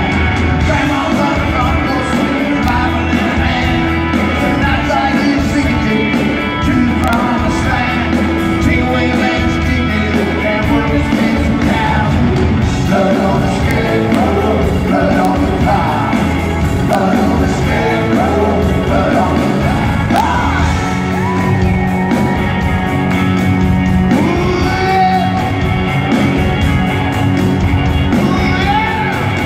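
Live rock band playing loudly in a large concert hall, heard from the audience: drums, electric guitars, bass and fiddle.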